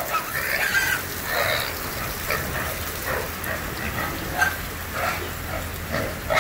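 Pigs grunting now and then over steady rain noise.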